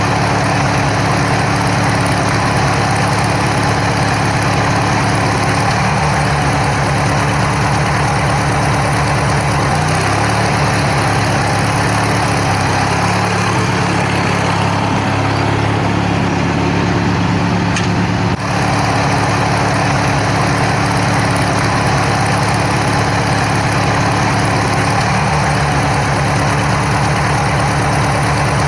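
Riding lawn tractor's engine running steadily while mowing, its pitch stepping up and down a few times.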